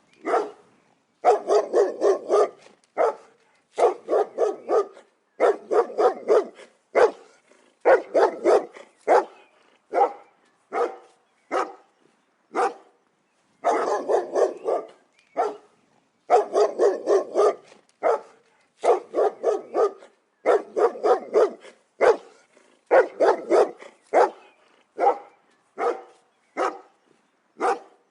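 Dog barking in quick runs of several barks, with a short pause between each run.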